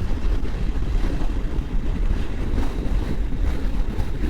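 Moto Guzzi V85's air-cooled V-twin engine running at a steady cruise, with wind rushing over the microphone.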